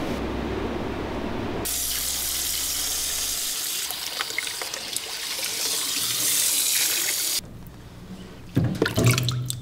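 Water from a hand-held shower hose running and spraying over a wet cat's fur in a bathing tub. The spray stops abruptly about seven seconds in, and a few short knocks and splashes follow near the end.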